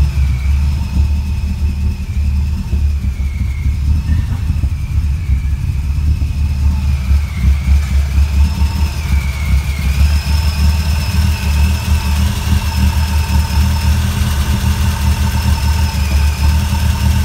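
Supercharged Subaru EJ257 flat-four with large custom cams idling on a newly installed Haltech standalone ECU: a deep rumble with a steady high whine over it. The whine's pitch wavers for the first half and then settles about ten seconds in.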